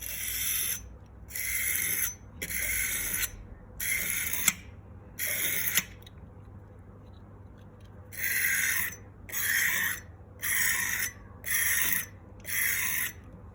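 Razor blade, held in a large clip, stroked across a sharpening stone: ten short scraping strokes in two runs of five, with a pause of about two seconds between the runs.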